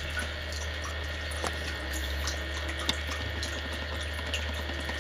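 Steady rushing background noise with a low hum beneath it and a few faint ticks.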